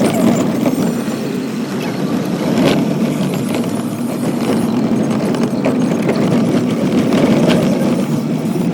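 A vehicle's engine running steadily, with scattered knocks and rattles.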